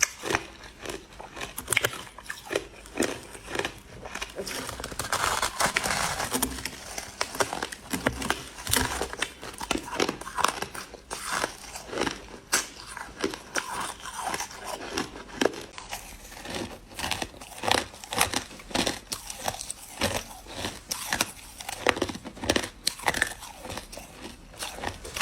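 Crushed ice being bitten and chewed: a continuous run of sharp, crisp crunches, several a second.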